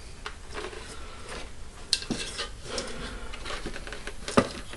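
A steel helmet shell and its liner being handled: scattered light metallic clicks and taps, with a sharper click about two seconds in and a louder knock near the end.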